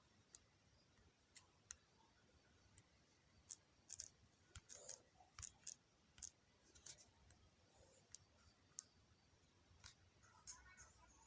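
Faint, irregular light clicks and taps over near silence, most of them in a cluster in the middle and a few more near the end: fingers tapping a phone's touchscreen.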